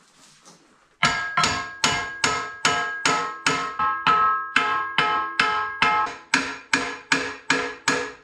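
A hammer striking steel over and over, about two blows a second, each ringing like a bell and dying away before the next. The blows start about a second in and come from trying to knock out a pressing plate stuck fast in a steel sawdust-briquette mold.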